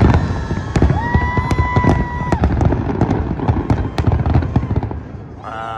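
Fireworks display: dense, rapid bangs and crackles over a deep rumble of booms. A single held tone lasts over a second about a second in, and a voice is heard briefly near the end as the bangs thin out.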